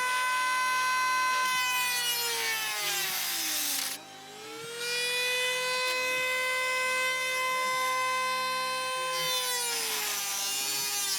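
Handheld power tool cutting sheet metal, its motor running with a high whine. The pitch sags under load and the motor stops about four seconds in, then it spins back up, runs steadily, and winds down near the end.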